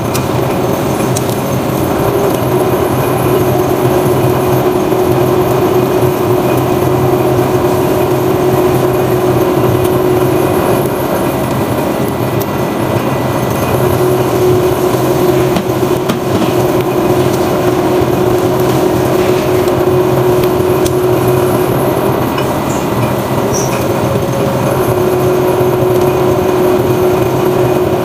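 Open two-roll mill running with a sheet of silicone rubber on its steel rollers: a continuous loud machine rumble with a steady hum that drops out twice.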